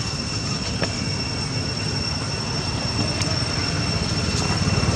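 Wind rumbling on the microphone, with a steady high-pitched whine above it and a few faint clicks.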